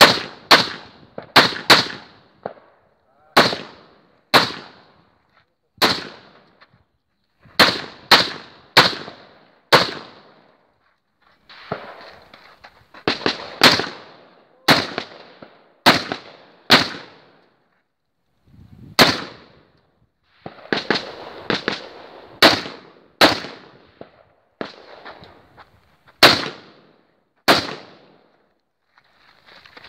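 Handgun fired with a muzzle brake: about two dozen sharp shots, mostly in pairs and short strings, with pauses of one to two seconds between strings.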